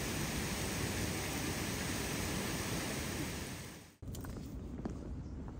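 Loud, steady rushing noise, like wind on the microphone or running water, that fades out just before four seconds in. After a cut, a quiet background with a few faint clicks follows.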